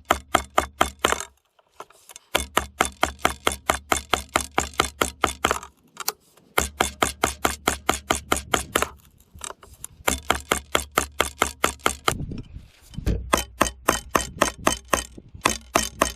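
Rapid, evenly spaced tapping, about five or six sharp taps a second, in runs of a few seconds with brief pauses between them.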